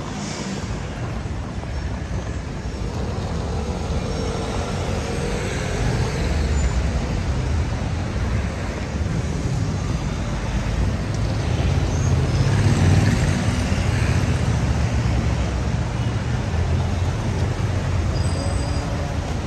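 City street traffic: cars and scooters passing on a busy boulevard, a steady rumble of engines and tyres that swells twice as vehicles go by.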